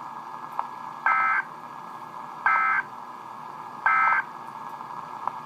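Emergency Alert System end-of-message signal: three short buzzing bursts of SAME digital data tones, evenly spaced about a second and a half apart, marking the end of the alert.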